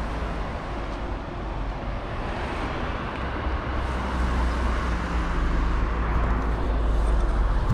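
Street traffic noise with a vehicle engine running nearby, growing louder near the end, over a steady low rumble.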